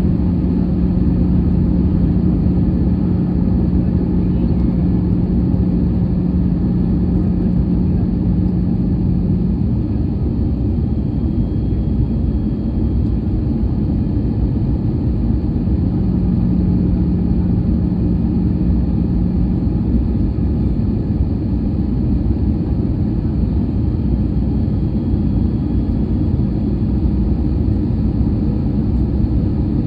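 Airbus A320 cabin noise in flight, heard from inside the cabin: a steady rumble, with a low steady hum that fades out about ten seconds in and returns for a few seconds about halfway through.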